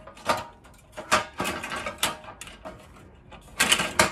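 Metal parts of a portable charcoal grill clanking and clicking as they are handled and fitted into the grill body: a string of sharp knocks, the loudest cluster near the end.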